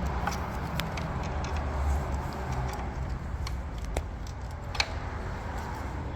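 Scattered light clicks and taps of plastic and metal parts being handled as the fuel level sensor is worked out of the car's fuel tank, over a steady low hum. The sharpest click comes near the end.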